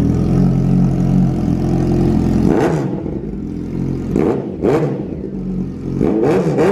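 Sport motorcycle with a Racefit aftermarket slip-on exhaust idling, then its throttle blipped in short revs about two and a half seconds in, twice in quick succession near four and a half seconds, and in a burst near the end.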